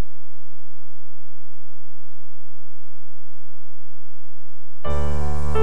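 Steady low electrical hum through the sound system, then near the end a Roland electronic keyboard comes in with a loud, sustained piano-voiced chord.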